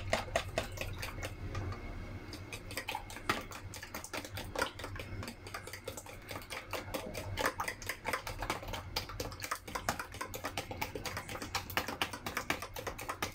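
Raw eggs being beaten with a metal spoon in a plastic tub, the spoon clicking quickly and unevenly against the sides of the container.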